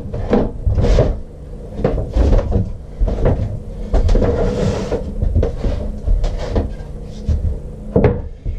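A string of knocks and thumps as a DeWalt benchtop table saw is lifted off a wooden workbench and wooden window-frame pieces are set down and handled on the bench.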